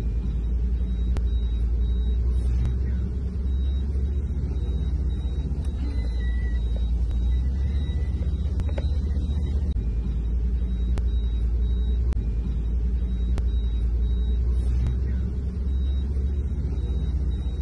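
Pine forest wildfire burning: a steady, deep rumble with faint clicks about every second.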